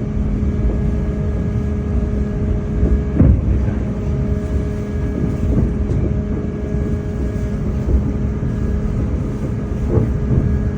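Steady low rumble of a moving vehicle with a constant droning hum, and a couple of brief knocks about three seconds in and near the end.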